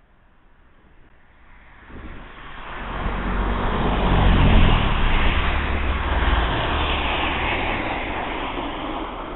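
A motor vehicle passing close on the street. Engine rumble and road noise build up over a couple of seconds, are loudest a little before halfway, then slowly fade away.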